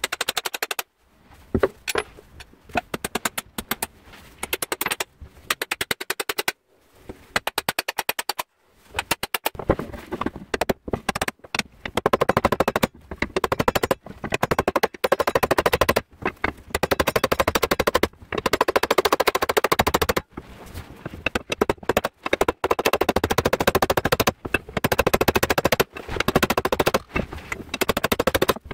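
Hammer striking the steel socket of a bill hook where it fits onto its oak handle: a fast run of sharp metallic taps, broken by short pauses in the first several seconds and then coming steadily.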